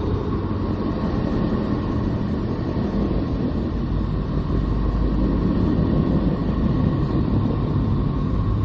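Low, steady rumbling drone with faint held tones above it: a 'planet sound' from space, the kind of sonified spacecraft radio and plasma-wave recording presented as the sound of a planet.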